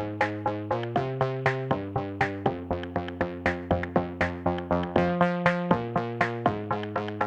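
Background music: a steady, rhythmic pattern of short notes, about four a second, over chords that change every second or so.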